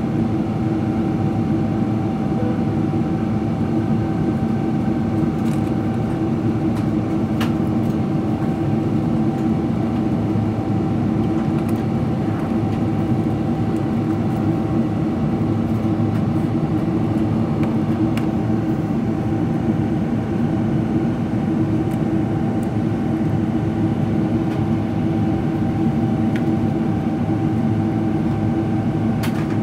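Steady cabin noise of a Boeing 777-300ER climbing at climb thrust: the rush of air over the fuselage and the hum of its GE90 engines, with a few faint steady tones running through it.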